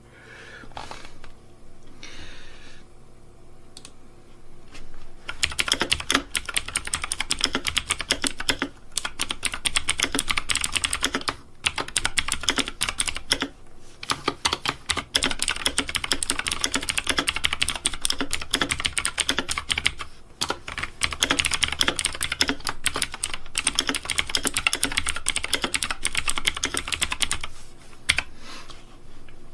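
Rapid typing: dense runs of quick clicks that begin about five seconds in, pause briefly now and then, and stop near the end.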